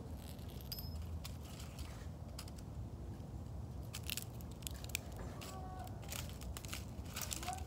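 Toy push lawnmower being pushed over the ground: irregular crackles, clicks and crunches over a low rumble. A child's short vocal sound near the end.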